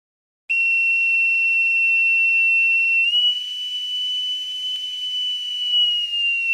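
A loud, high whistle-like tone holds one steady note. It steps up slightly about halfway through and starts to slide down near the end.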